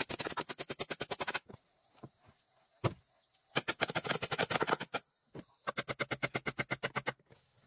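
Hammer driving nails into wooden pole framing: three quick runs of sharp knocks, about a dozen a second, with a single knock between the first two.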